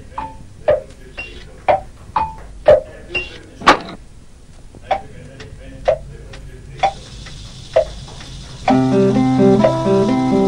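Clock ticking with a tick-tock in two alternating pitches, about two ticks a second, then slowing to about one a second. About nine seconds in, a plucked guitar tune with a bass line begins.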